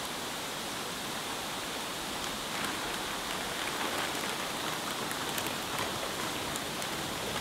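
A steady watery hiss, and from about two and a half seconds in, light crackles of a thin plastic bag crinkling as it is drawn over a koi held in a pan net.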